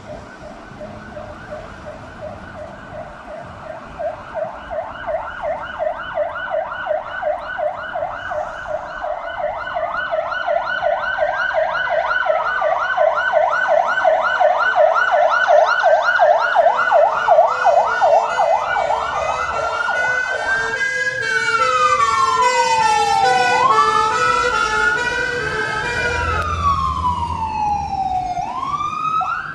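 Emergency sirens of an approaching fire engine and Garda vehicle, growing louder. A fast yelp of about three sweeps a second runs with a slower rising and falling wail; after about twenty seconds the yelp stops, leaving slow wails and a stepped two-tone pattern. A heavy vehicle's engine rumbles near the end.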